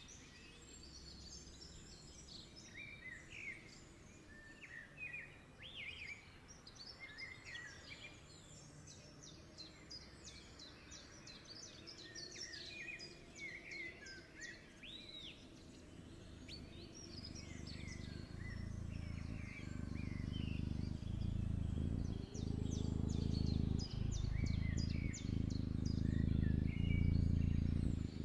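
Birds chirping and trilling in short, repeated calls. In the second half a low steady hum swells up and becomes the loudest sound, dropping out briefly a few times near the end.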